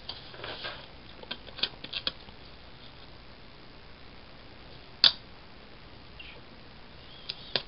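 Paper sticker being peeled and pressed onto a planner page: light crinkling and small clicks in the first two seconds, then a single sharp click about five seconds in and another near the end.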